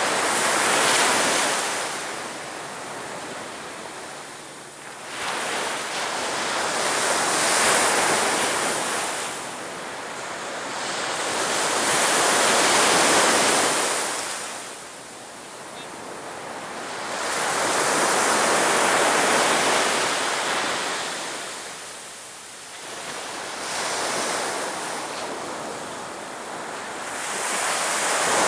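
Sea waves breaking on a beach. The surf surges and dies away in a slow rhythm, one wave about every five to six seconds.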